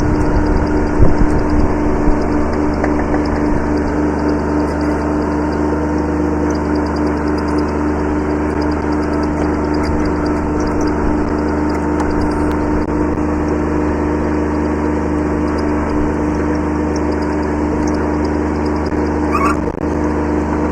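Kubota B7100 subcompact tractor's three-cylinder diesel running steadily at constant speed, with a few sharp knocks about a second in.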